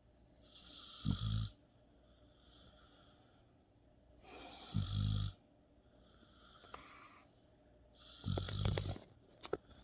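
A sleeping dog snoring: three snores about four seconds apart, each a hissing breath that ends in a low rattle. A few short clicks come near the end.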